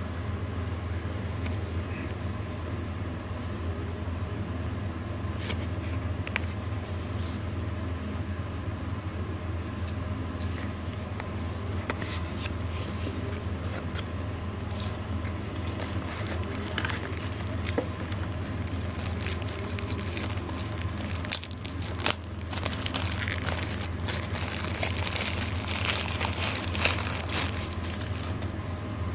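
Cardboard gift box being handled and opened, with scattered scrapes and clicks, then a wrapper crinkling loudly for several seconds near the end as the charger is unwrapped. A steady low hum runs underneath.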